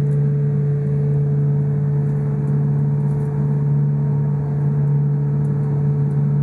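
Semi-submersible sightseeing boat's engine running steadily, heard from inside its underwater viewing cabin: a loud, even, deep hum with a fainter steady higher tone over it.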